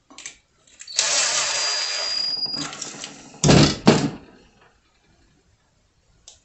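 Cordless drill/driver running for about a second and a half with a steady high whine, driving in a terminal screw on a wall switch. Then two loud knocks about half a second apart.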